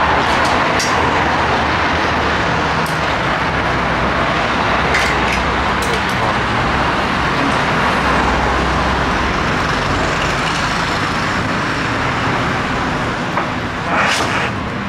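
Steady street traffic noise, with motor vehicles running close by. A few light clicks and knocks come through, the loudest near the end.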